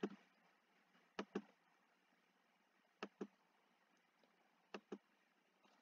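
Computer mouse clicking: four pairs of quick, sharp clicks spaced one to two seconds apart, over near silence.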